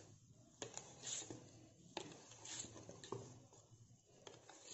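Wire whisk beating thick chocolate cake batter in a steel bowl: faint, rhythmic wet strokes about every half second, with an occasional click of the wires against the bowl.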